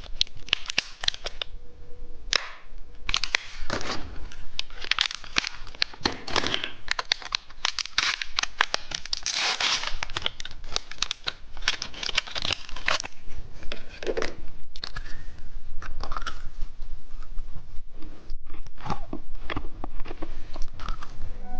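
Candy wrapper being torn open and crinkled, with candy crunched and chewed. Dense crackling runs throughout, with louder noisy swells.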